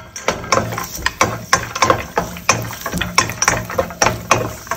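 Cashews and raisins frying in hot oil in a stainless steel pot: irregular crackling and popping, several pops a second, with a wooden spoon stirring them against the pot.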